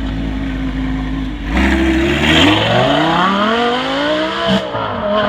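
Audi R8 sports car engine pulling away hard. It runs low and steady at first, then about a second and a half in the revs rise sharply and keep climbing, with a short drop in pitch near the end.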